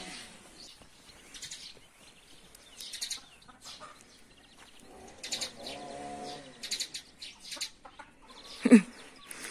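Domestic hens clucking in short, scattered calls as they come out into the yard, with a longer call in the middle and a louder short call with falling pitch near the end.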